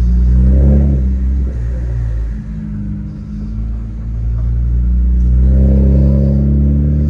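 BMW 135i's N54 twin-turbo straight-six running through a single-exit exhaust with the muffler removed, swelling in engine speed twice: about a second in, and again from about four to six seconds.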